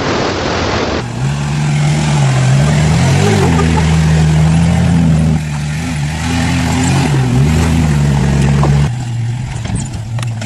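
A vehicle's motor running, its pitch rising and falling several times, then settling to a steadier, lower hum near the end.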